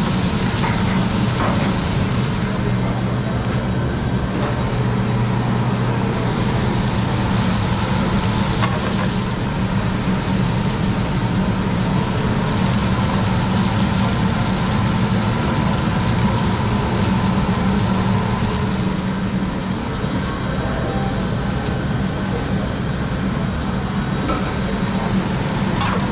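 Beef patties sizzling on a flat-top griddle over a steady low hum of commercial kitchen machinery.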